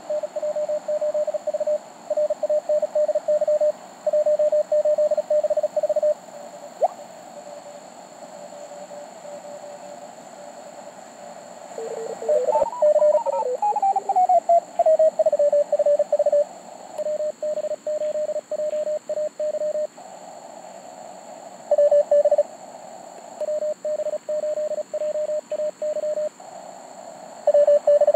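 Morse code (CW) tones at about 600 Hz from a Mountain Topper MTR4B QRP transceiver, keyed on and off in a CWT contest exchange of callsigns, names and member numbers. About twelve seconds in, a tone slides down in pitch before the keying goes on.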